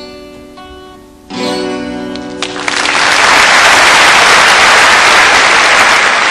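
Acoustic guitar ending a folk song: picked notes fading, then a last strummed chord about a second in. An audience then breaks into applause that swells and holds loud.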